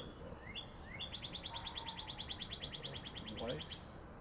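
A songbird singing: a few quick rising notes, then a fast, even trill of about ten notes a second lasting nearly three seconds.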